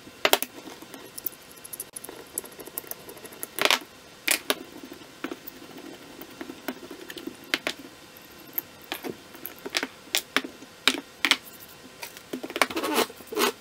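Metal parts of a rusty hand plane clicking and knocking against each other and onto a wooden workbench as the plane is taken apart: irregular sharp clinks, with a quick run of them near the end.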